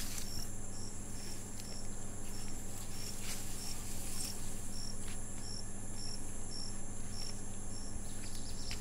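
Field crickets chirping: a regular high chirp about twice a second over a steady, higher-pitched insect trill.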